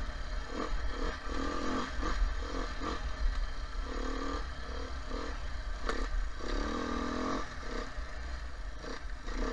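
Beta 430 RR-S four-stroke single-cylinder dirt bike engine under riding load, the throttle opened and closed in short bursts, with longer pulls about four and seven seconds in, over a steady low rumble.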